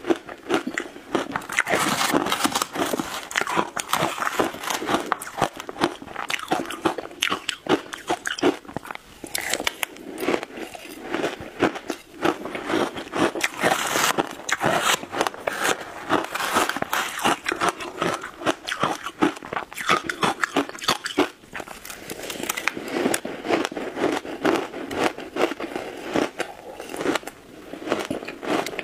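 Shaved ice topped with passion fruit pulp being bitten and chewed close to a clip-on microphone: a dense, continuous run of crisp crunches and crackles.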